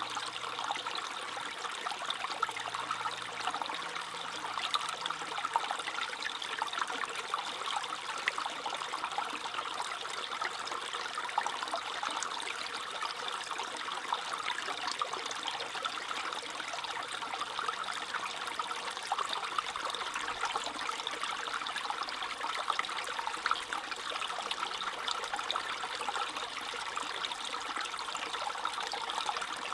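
Small stream trickling and babbling steadily over stones, a bright, bubbly burble with many small splashes.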